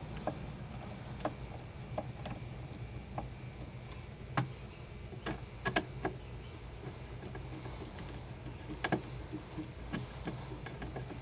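Scattered light clicks and taps of a Phillips screwdriver turning in the screws that hold a washing machine's shift actuator, a few louder than the rest. A faint steady low hum runs underneath.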